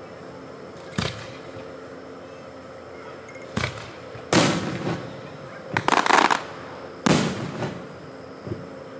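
Aerial firework shells bursting in a series of booms spread across several seconds, with the loudest bursts in the middle and a quick run of crackling bangs about six seconds in.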